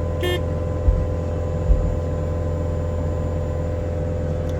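Cat 299D3 compact track loader's diesel engine running steadily while it works a heavy rock into place with its grapple. Two dull thumps come about a second in and shortly after, and a brief high squeak sounds near the start.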